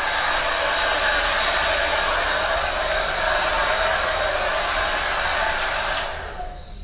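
Handheld hair dryer running: a steady rushing hiss with a faint high whine. It is switched off with a click about six seconds in and winds down.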